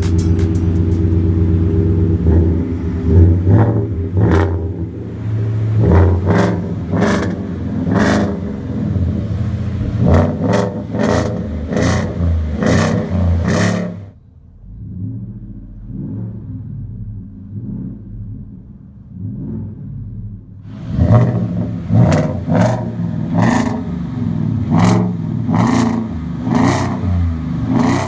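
2018 Ford F-150's 5.0 V8 through a Flowmaster true dual exhaust with 4-inch dual-wall tips, revved again and again, heard at the tailpipe. About halfway through it is heard from inside the cab for some seven seconds, quieter and muffled, and then outside at the tailpipes again.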